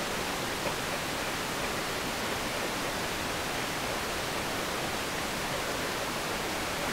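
Steady, even hiss of background noise, with no distinct tool sounds standing out.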